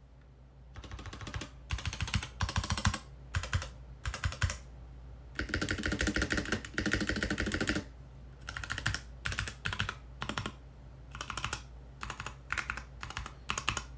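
Typing on an NK65 mechanical keyboard with Kailh Polia tactile switches: bursts of rapid keystrokes broken by short pauses, starting about a second in, with the fastest, densest runs in the middle.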